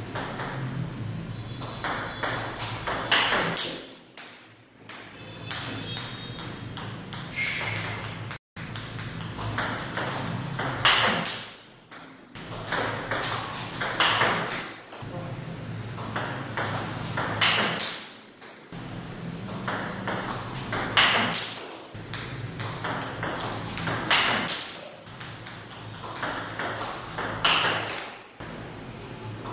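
Table tennis balls clicking off the table and the rubber paddles in a repeated backhand-loop drill, with a louder peak about every three to four seconds.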